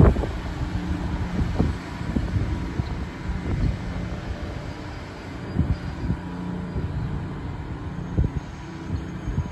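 Taiwan Railway EMU3000 electric multiple unit creeping slowly into the platform: a steady electrical hum from the train over a low rumble, with irregular low thumps.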